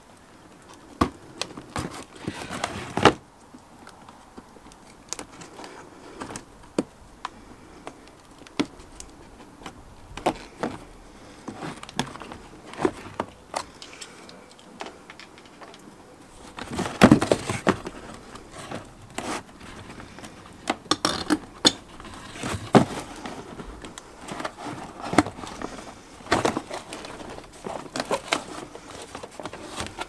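Scattered clicks, knocks and scuffs of a small pneumatic mobility-scooter tyre being levered off its alloy rim by hand with plastic tyre levers. A busier, louder run of scraping and knocking comes about halfway through.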